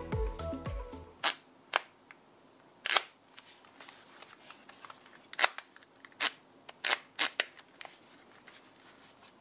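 Harman Kardon Fly ANC over-ear headphones being handled, giving several sharp plastic clicks at irregular intervals as the headband slider is adjusted and the ear cups are swivelled. Background music stops about a second in.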